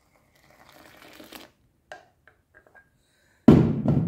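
Liquid laundry soap being poured from a plastic jug into a basin of thick foam: a faint soft pour with a few small clicks, then a sudden loud bump near the end.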